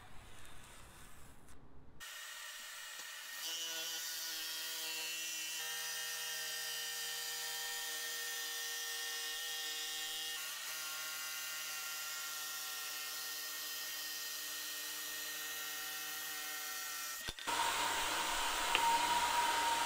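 A DeWalt jigsaw with a dust-extraction hose cutting through 3/4-inch plywood: a steady motor whine that starts about two seconds in and gets louder a second later as the blade bites. Near the end it gives way to a louder whistling rush from a shop vac hose sucking up sawdust.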